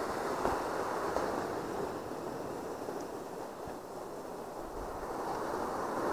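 Ocean surf washing onto the beach in a steady rush that eases off around the middle and builds again near the end.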